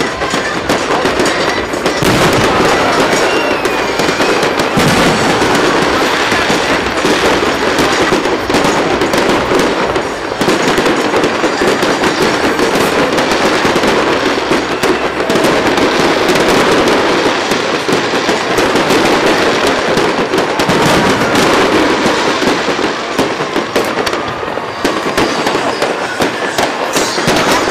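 Fireworks display going off: a dense, unbroken crackle of many small bursts, with stronger pops now and then.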